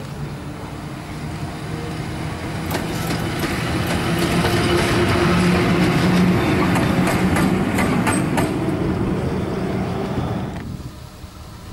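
A single locomotive passing close by. Its steady hum grows louder as it approaches, and its wheels click in a quick run over the rail joints as it goes past. The sound cuts off sharply near the end.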